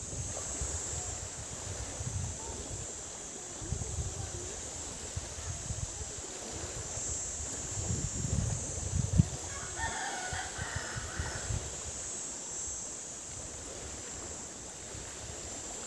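A rooster crows once, about ten seconds in, over a gusty low rumble.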